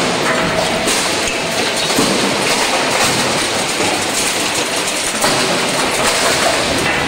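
Engine crusher line running, with crushed scrap metal clattering steadily on the conveyors and in the crusher: a loud, dense, continuous rattle.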